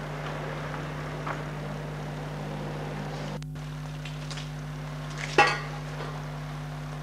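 Steady low hum with hiss, broken by a brief dropout about three and a half seconds in, then one sharp knock with a short ring a couple of seconds later.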